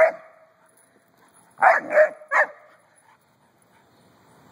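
Doberman puppy barking: one bark, then three quick barks about a second and a half later.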